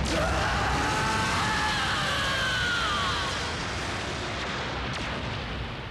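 Anime explosion sound effect: a long, rumbling blast of noise with whining tones sliding down in pitch, fading out gradually over the last few seconds.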